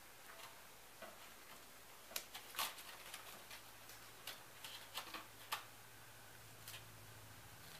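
Faint, irregular clicks and crackles of black tape being pulled and wrapped around pipe-cleaner petals, about a dozen scattered ticks with the loudest about two and a half seconds in.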